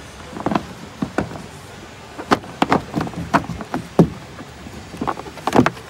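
Irregular plastic clicks and knocks as gloved hands work the trunk lid's trim cover and emergency release handle loose, with about a dozen sharp taps bunched in the middle.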